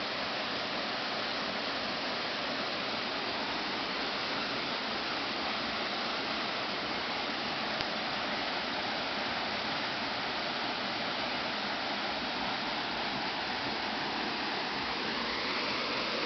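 Steady rushing of a rocky river, its water running over and between stones at an even level.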